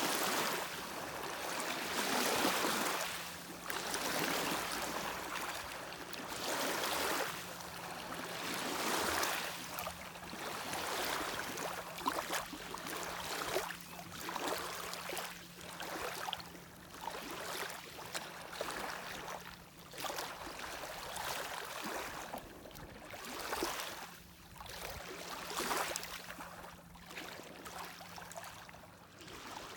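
Small lake waves lapping and washing against the shore, one swell every second or two, over a faint steady low hum.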